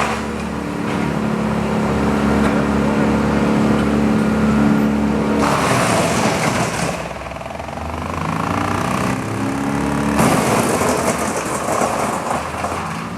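An engine running, its pitch shifting up and down, with two stretches of harsher, noisier sound about five and ten seconds in.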